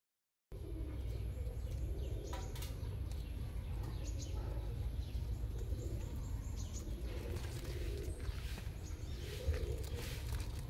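Outdoor ambience: birds calling, with short high chirps now and then, over a steady low rumble.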